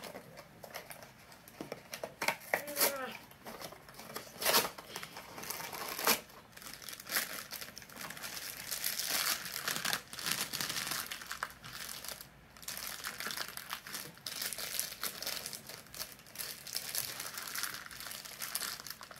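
Hands opening a Funko Mystery Mini blind box: a few sharp snaps and clicks of the small cardboard box in the first six seconds, then continuous crinkling and crumpling of the foil bag inside as it is pulled and torn open from about eight seconds in.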